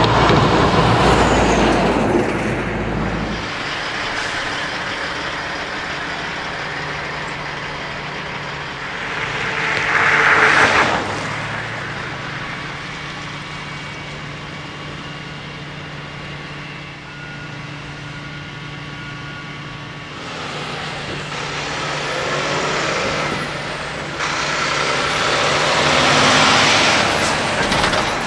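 Diesel tractor-trailer trucks on the road: one passes loudly at the start, and an air brake hisses briefly about ten seconds in. A truck engine then runs steadily, building to another loud pass with a high whine near the end.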